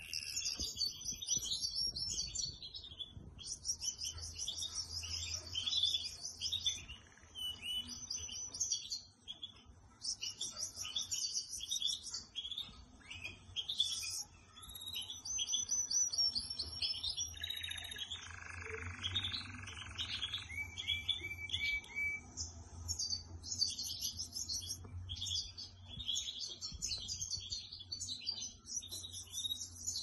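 Domestic canary singing a long, continuous song of high chirps, whistles and fast rolling trills, broken by a few brief pauses.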